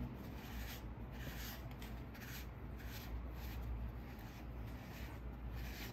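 Faint rubbing of a fingertip and then a nearly dry sponge over the inside of a soft clay bowl, in repeated short strokes as the bottom is smoothed.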